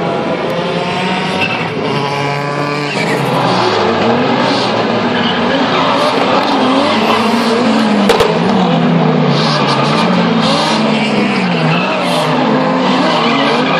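Drift cars being driven hard, engines revving up and falling back again and again, with tyres squealing and skidding. A single sharp crack about eight seconds in.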